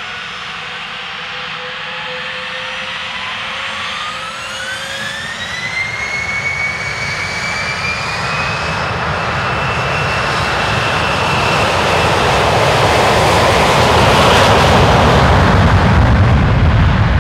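Gulfstream G650ER business jet's twin Rolls-Royce BR725 turbofans spooling up to takeoff power. A turbine whine rises in pitch about four to six seconds in and then holds high, while the jet roar grows steadily louder, with a deep rumble building near the end.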